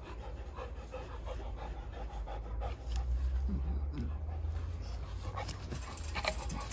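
Dogs panting hard and fast, in short even breaths, while they wrestle in play.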